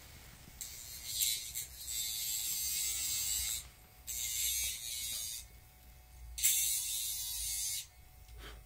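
Electric rotary pet nail grinder buzzing as it files a dog's nails, in three spells: a long one of about three seconds, then two shorter ones of about a second and a half.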